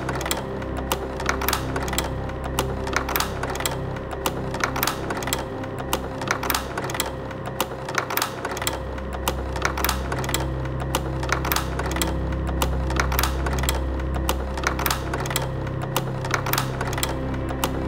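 Slide projector running: its fan hums steadily while the slide-change mechanism clicks over and over in an even rhythm.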